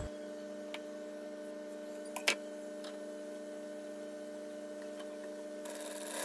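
Steady low electrical hum, with two light clicks about two seconds in and a short rustle of cloth being handled near the end.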